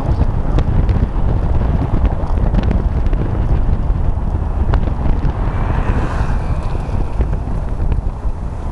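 Wind rumbling on the microphone of a camera in a moving car, over the car's road noise on cobblestones, with a brief higher whine about six seconds in.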